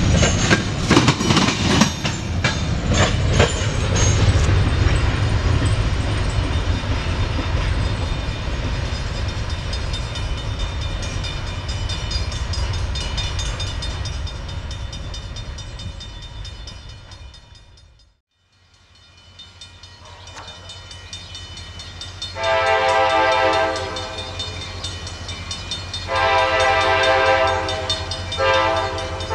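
Freight train of covered hopper cars rolling past, wheels clicking and banging over rail joints, the noise fading steadily as the train recedes. After a short silence, a locomotive horn sounds two blasts, a short one and then a longer one that runs on.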